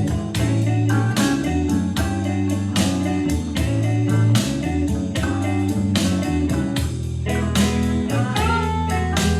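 A guitar-led song with bass and a steady beat, played through a portable Bluetooth speaker for a sound test.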